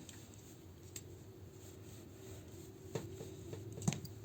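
Faint handling of small plastic toy parts, with a few light clicks as pieces are pushed and fitted together.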